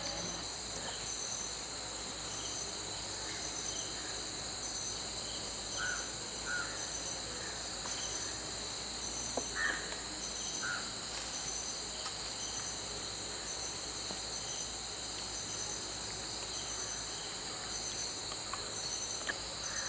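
A steady, high-pitched chorus of insects, one of them trilling in a regular pulse. A few short chirps come through near the middle.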